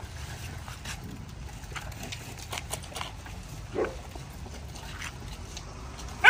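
An animal eating, with faint clicks throughout, a brief low grunt about four seconds in, and a loud, short, rising cry at the very end.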